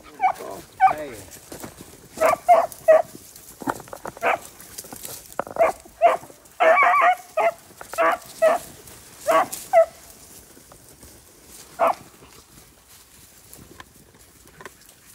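Beagles giving short, high yelping barks in quick clusters while hunting through brush for a shot rabbit that crawled off. The barking stops about three-quarters of the way through.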